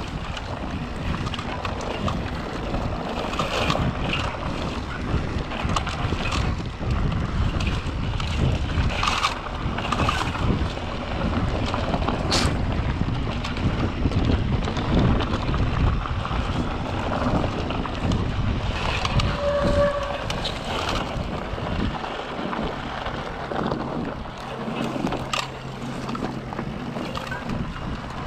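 Wind buffeting the microphone and the tyres of an electric mountain bike rolling over a dirt singletrack, with scattered clicks and rattles from the bike. A steady low hum joins in about two-thirds of the way through.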